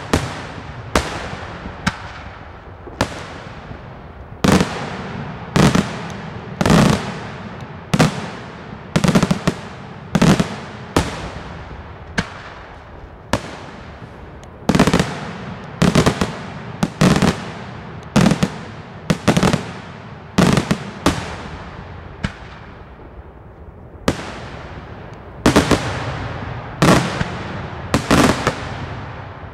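Daytime aerial firework shells bursting overhead in an irregular run of loud bangs, about one a second and sometimes in quick pairs, each trailing off in a rolling echo. The bangs thin out briefly about three quarters of the way through.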